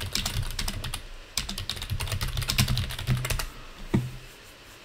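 Typing on a computer keyboard: rapid keystrokes in two quick runs, stopping about three and a half seconds in, then one lone keystroke.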